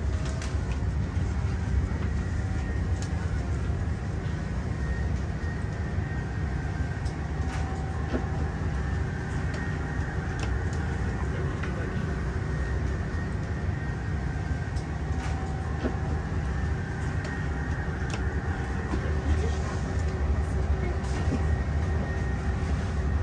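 Steady low rumble and hiss of an Airbus A340 cabin's air conditioning while the aircraft is on the ground before departure, with a few faint clicks.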